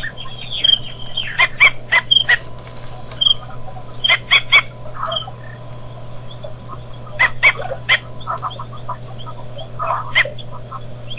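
Birds calling in short, sharp notes, often in quick runs of two or three, over a steady low hum.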